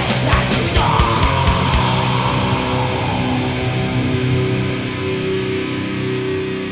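Distorted crust punk / metal band music with electric guitars, bass and drums. The drum hits stop about a second and a half in, and the guitars hold a ringing chord that slowly fades as the song ends.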